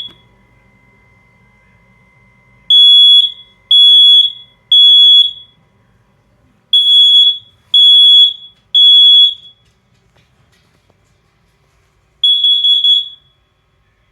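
Smoke alarm sounding its test alarm: a high-pitched beep in the temporal-three pattern, two groups of three beeps about a second apart, then a shorter, broken burst near the end.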